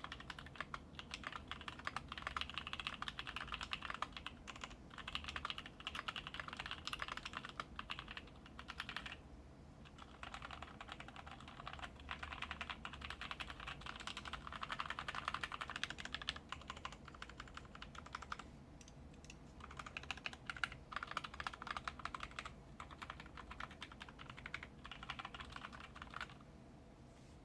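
Fast typing on a KBD75v2 mechanical keyboard with lubed NovelKeys Cream linear switches on an aluminium plate, PBT keycaps and no sound dampening: a dense run of keystrokes broken by two short pauses, stopping shortly before the end.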